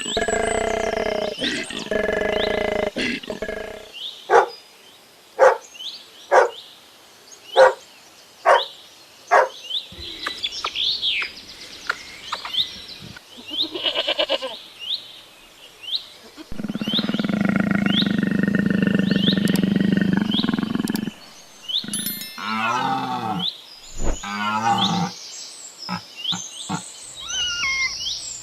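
A series of different animal calls one after another: pitched calls at the start, then short calls about once a second with higher chirps over them. Past the middle comes one long steady low call of several seconds, followed by wavering calls.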